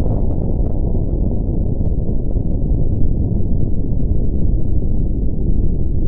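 Explosion sound effect: a loud, deep, continuous rumble with scattered crackles in the first two seconds or so.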